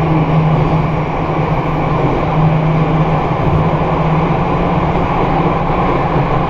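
MRT Jakarta Ratangga train running at speed through an underground tunnel, heard from inside the car: a loud, steady rumble of wheels on rail with a low hum that fades and returns.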